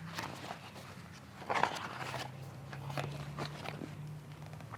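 Rustling and light clicks and knocks of something being handled, loudest about a second and a half in, over a faint steady low hum.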